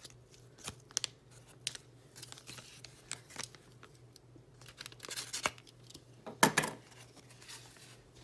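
Paper envelope and foil-lined plastic pouch rustling and crinkling as they are handled, with scattered small clicks and a louder crinkle about six and a half seconds in.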